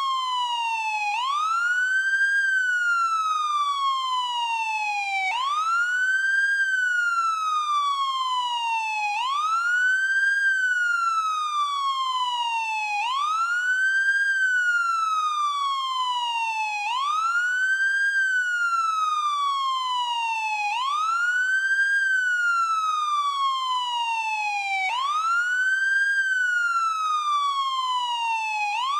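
American police car siren on its wail setting, sweeping over and over. Each cycle rises quickly in pitch over about a second, then falls slowly over about three seconds, and repeats about every four seconds.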